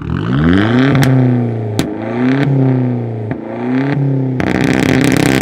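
Hyundai Genesis coupe's loud exhaust being revved hard in quick blips, with a sharp crack as the revs fall after each one. Near the end the engine is held at high revs for about two seconds.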